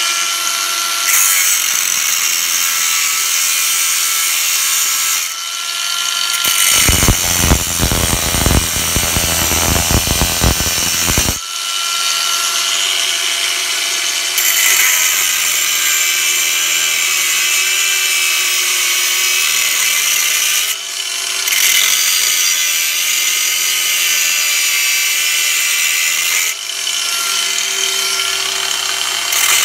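Haimerdinger LB168 brushless cordless angle grinder cutting through a steel pipe piece: a steady motor whine under the hiss of the disc grinding metal. The middle few seconds are louder and rougher, and the cut eases off briefly a few times.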